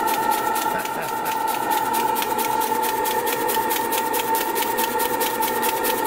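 Butane gas torch burning steadily under a homemade copper steam boiler: a continuous hissing burner noise with a rapid, even flutter and a steady tone running through it. The boiler is still heating and has not yet built pressure.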